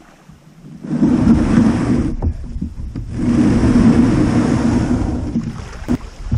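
Wilderness Systems ATAK 120 kayak's plastic hull scraping and sliding over the muddy shore as it is pushed off into the water, in two long grinding pushes, the first about a second in and the second, longer, from about three seconds in.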